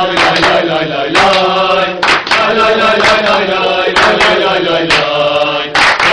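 A small group of men singing a football supporters' chant in unison, clapping along about once a second.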